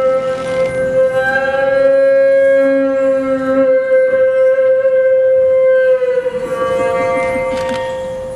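Live music: one long, steady held note rich in overtones, with a lower note sounding beneath it for the first few seconds; the note dips slightly in pitch about six seconds in.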